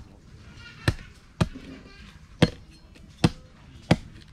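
A machete chopping through a thin green bamboo stick laid on concrete: five sharp strikes, unevenly spaced, roughly one a second or less apart.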